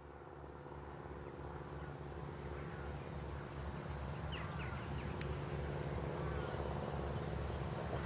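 Distant Eclipse business jet's twin turbofans: a low, steady drone that slowly grows louder as the jet approaches. A few short bird chirps come about four to five seconds in.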